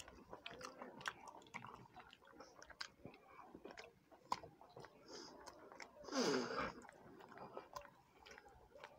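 Chewing and small clicking mouth sounds of people eating rice by hand, faint and scattered. A short voiced murmur with a falling pitch comes a little after six seconds.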